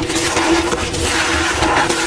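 Blocks of gym chalk being crushed and crumbled by hand: a dense, continuous crunching and squeaking of the powdery chalk, with a steady hum underneath.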